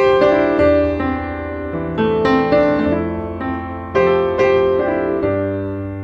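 Background music: a piano playing chords, each struck and left to die away.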